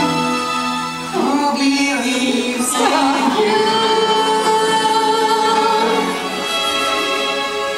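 Singing with musical accompaniment from a stage musical. The voices hold long notes over the accompaniment, changing notes about a second in and again about three seconds in.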